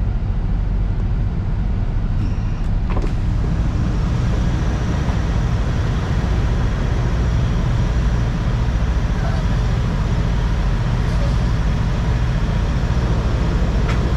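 Semi-truck tractor's diesel engine running steadily while the tractor backs under the trailer to couple up, with a couple of short knocks about three seconds in.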